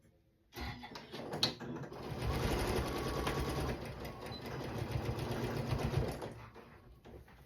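Domestic sewing machine stitching a seam through quilt rows, with rapid, even needle strokes. It starts about half a second in with a couple of short stop-start spurts, where the seam is backstitched at its start. It then runs steadily and winds down about six seconds in.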